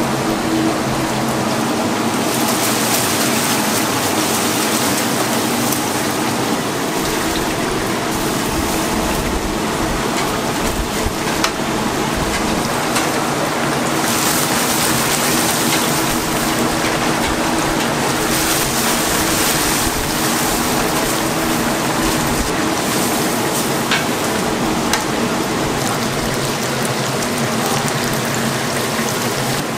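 Chicken deep-frying in a cauldron of hot oil: a steady, dense crackling hiss that swells and eases several times, with a low steady hum underneath.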